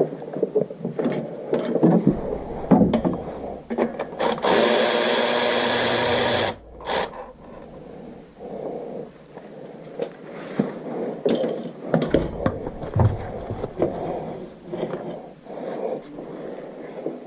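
Metal tool clinks and knocks of hands-on work, with a power tool running steadily for about two seconds near the middle and a brief burst right after it.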